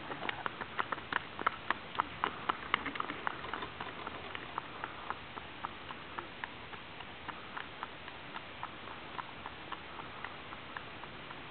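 Draft pony's hooves clip-clopping on a paved road in an even rhythm, loudest in the first few seconds, then fainter as the pony moves away.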